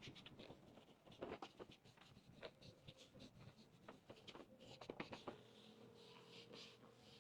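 Near silence with faint, irregular small clicks and scratching.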